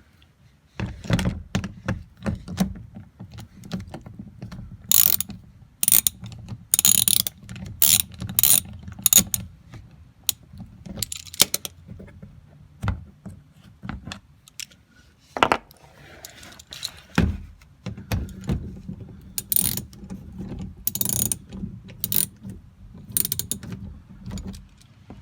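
Socket ratchet clicking in runs as 8 mm bolts are backed out of the engine undercover, with scattered knocks and clatter of the tool and fasteners.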